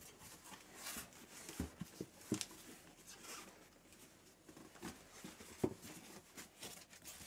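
Cardboard box flaps and a foam packing block being handled: scattered rustling and light knocks, with a sharper knock a little past two seconds and another between five and six seconds in.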